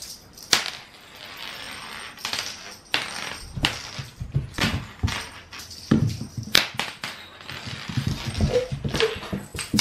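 A cat's paws and claws scrabbling, skidding and thumping on a wooden floor as it chases and pounces on a string toy, with repeated sharp knocks and scratchy scuffs between them.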